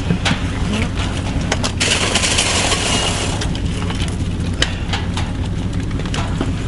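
A steady low mechanical hum, with scattered small clicks and knocks and a brief hiss about two seconds in.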